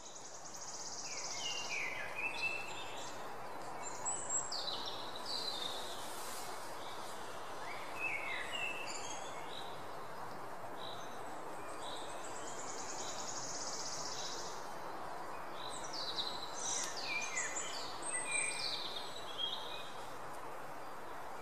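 Several birds chirping and trilling, with short gliding calls and buzzy trills in scattered clusters, over a steady hiss of background noise.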